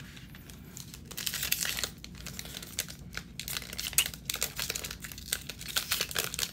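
A foil NBA Hoops trading-card pack being crinkled and torn open by hand: quiet for about the first second, then repeated crackling and tearing with sharp snaps, the sharpest about four seconds in.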